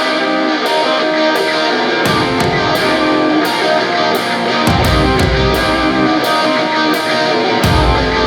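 Background rock music with distorted electric guitar; heavy bass and drums come in partway through.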